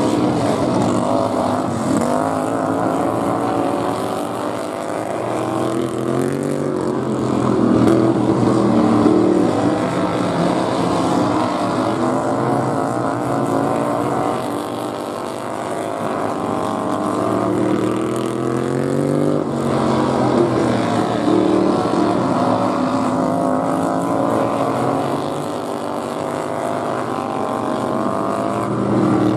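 Several racing lawn mowers' small engines running hard together, their pitches climbing and dropping as they throttle up and back off. The combined sound grows louder and fades a few times.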